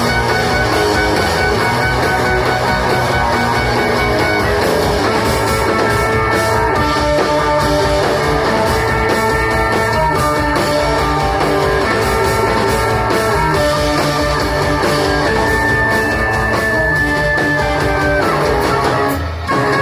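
Live rock band playing loudly, with electric guitar and drums. The song breaks off near the end with a few closing hits.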